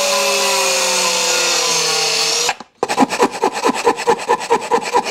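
Angle grinder running against a metal bracket clamped in a vise, its pitch sagging slightly under load, stopping about two and a half seconds in. Then a hand file rasps over the metal in quick strokes, several a second.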